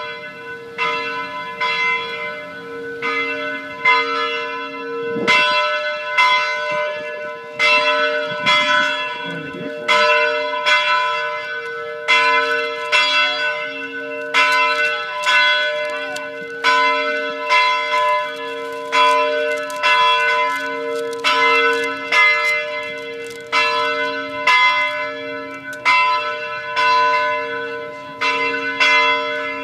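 Church tower bells ringing on and on, struck about once a second, each stroke ringing on into the next. The bells are rung to mark the arrival of a new pope.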